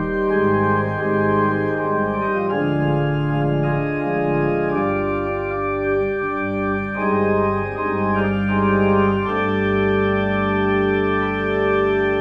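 Church organ playing slow, held chords over a sustained bass line, the chords changing every second or two.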